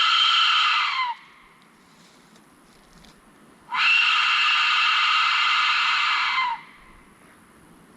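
Aztec death whistle blown in two long, harsh, screaming blasts. The first stops about a second in, and the second starts a little after three and a half seconds and lasts about three seconds. Each blast ends with a brief drop in pitch. It sounds like nails on a chalkboard.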